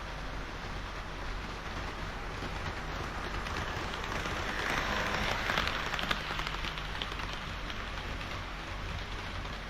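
HO scale model train of KiHa 40 and KiHa 58 diesel railcars running on the layout track: a steady rushing of wheels on rails with a low motor hum, swelling about five seconds in with a few sharp clicks as it passes closest.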